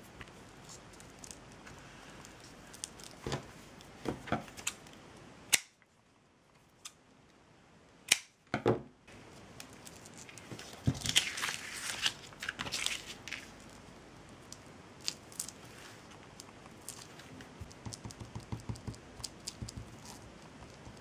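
Scattered small clicks, taps and rustling of hands working jute twine and glue, with a denser stretch of crinkling and rustling about eleven to thirteen seconds in. The background hiss cuts out abruptly for a couple of seconds near the six-second mark.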